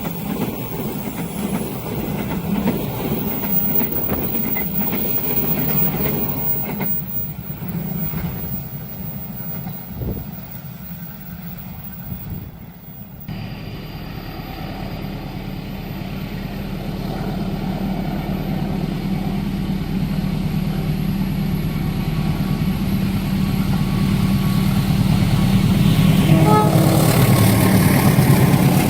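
A train passing over a level crossing, its rumble dying down. After a sudden cut, a steady low engine rumble grows louder, with a short horn blast near the end.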